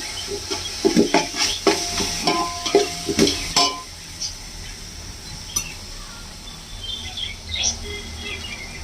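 A ladle knocking and scraping against the pot as onions with fresh mint and coriander leaves are stirred while frying, over a sizzle. The stirring stops about four seconds in, leaving a quieter steady sizzle.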